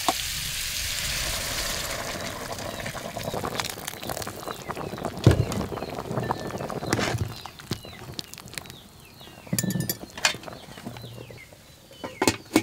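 Food sizzling in a hot pan, fading over the first couple of seconds, then scattered clinks and knocks of kitchen utensils. Small birds chirp repeatedly in the background toward the end.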